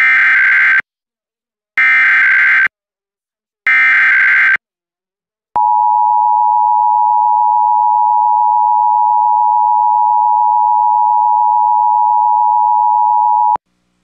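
Emergency Alert System tones announcing a Required Monthly Test: three short bursts of SAME digital header data, each under a second long and about a second apart, then the two-tone attention signal held steady for about eight seconds and cutting off abruptly.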